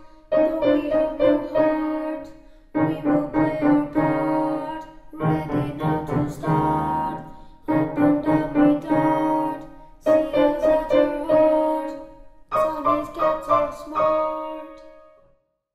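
Piano playing a simple beginner's piece in six short phrases of quick notes, one about every two and a half seconds with brief gaps between. Both hands stay on a few neighbouring black and white keys. The last phrase dies away near the end.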